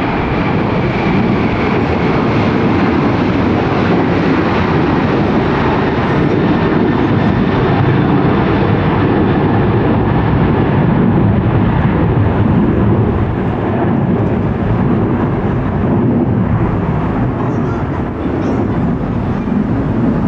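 Jet airliner's engines at takeoff power, a loud steady rumble with a faint high whine that fades in the first few seconds.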